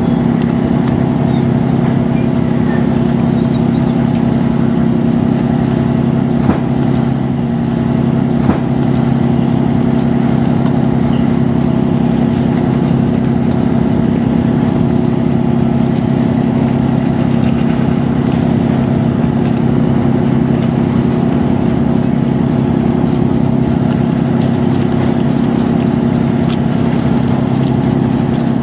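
Boat's diesel engine running steadily close by: a loud, even low drone with a constant hum that does not rise or fall.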